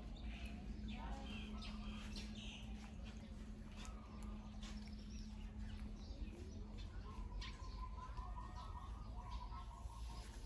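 Faint rural outdoor background with scattered bird chirps and small clicks, over a low steady hum that fades out about two-thirds of the way through.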